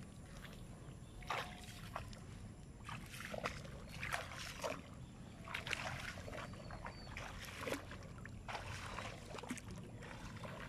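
Legs wading through shallow water over mud, with an uneven splash and slosh at each step, over a low steady rumble.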